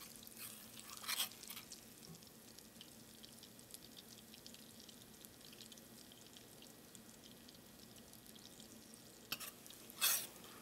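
Foaming butter in a stainless steel pan sizzling faintly with small crackles, gone quiet as the last of its water is driven off: the sign that it is about to start browning. A metal spoon or skimmer scrapes the pan briefly about a second in and again near the end.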